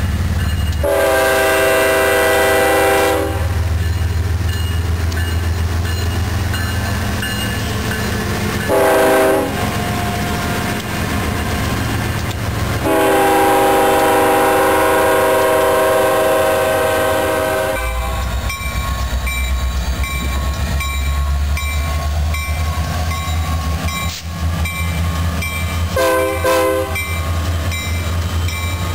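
Union Pacific freight train passing close at speed: the diesel locomotives' engines rumble while the air horn sounds its multi-note chord four times, a long blast about a second in, a short toot, a longer blast of about five seconds, and a short toot near the end. In the later part the wheels click rhythmically over the rail joints.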